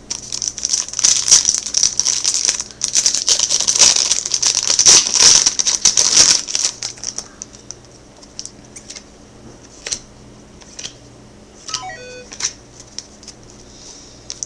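Foil trading-card pack wrapper crinkling and crumpling in the hands for about seven seconds, followed by scattered light clicks and taps as the cards are handled.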